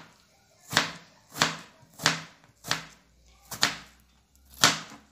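Kitchen knife cutting a raw potato into long strips on a plastic cutting board: about six separate cuts, each a short knock of the blade onto the board, spaced a little over half a second apart.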